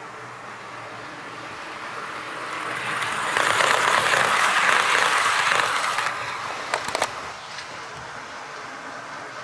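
HO-scale model freight train, an EF81 locomotive hauling empty Koki 50000 flat wagons, rolling past on sectional track: the rumble of wheels on rails swells as the wagons pass close and then fades. A quick cluster of sharp clicks comes about three-quarters of the way through.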